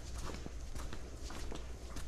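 Footsteps walking on a paved path: a quick, uneven run of light taps, over a steady low rumble.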